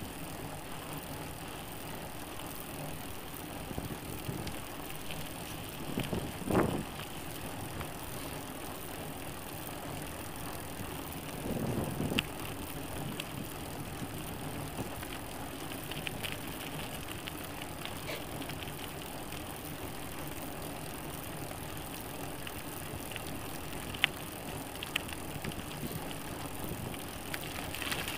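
Loaded touring bicycle rolling on a dirt road: a steady rush of tyre, drivetrain and wind noise, with two louder swells about six and twelve seconds in and a few faint clicks.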